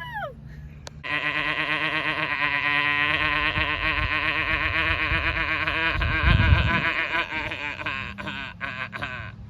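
A person imitating an animal call with their voice: one long, rapidly quavering call that starts about a second in, lasts about eight seconds and trails off near the end.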